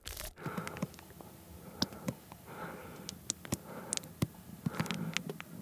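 Mayonnaise squeezed from a plastic squeeze bottle onto a bowl of tuna and rice: a few soft squirts with scattered small clicks and pops.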